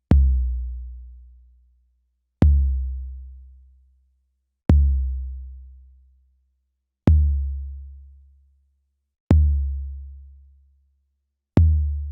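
A deep kick drum sample played back from an Akai MPC sampler, repeated six times about every two and a quarter seconds. Each hit is a sharp click followed by a low boom that dies away over about a second and a half.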